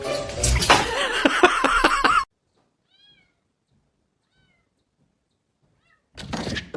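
A domestic cat meowing loudly for about two seconds, then a near-silent stretch with a few faint short high chirps, ending in a sudden loud burst of noise about six seconds in.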